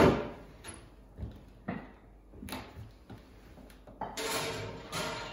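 A lidded cast-iron pot going into the bottom oven of an Aga range cooker, with the oven door handled: a sharp knock at the start, a few light clunks, then scraping slides near the end.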